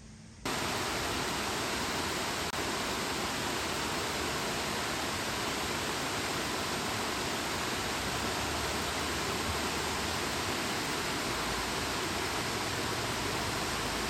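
Steady rush of water at a working water mill, starting abruptly about half a second in.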